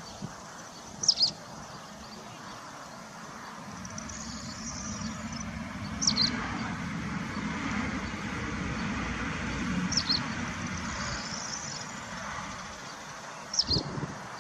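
A bird gives a short, high call four times, about every four seconds. Underneath is a low, steady outdoor rumble that swells in the middle and then fades.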